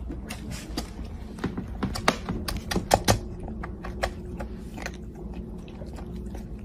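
A kitten eating dry kibble from a plastic bowl: irregular sharp crunches and clicks of kibble, with a few louder ones about three seconds in.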